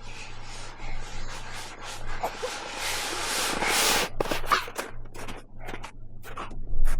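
Repeated rubbing, scraping strokes, about two a second at first, merging into one longer scrape around the middle, then quicker and irregular.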